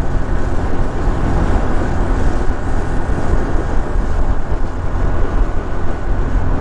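Motorcycle being ridden at a steady cruising speed: continuous engine and wind noise, heaviest in the low end, with no change in pace.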